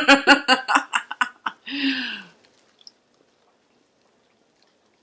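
A woman's voice in quick, pulsing syllables, then one falling-pitched vocal sound about two seconds in, after which it goes nearly silent.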